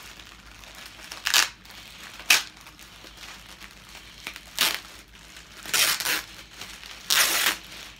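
Thin clear plastic polybag around folded clothing crinkling and tearing as it is pulled open by hand, in about five short bursts.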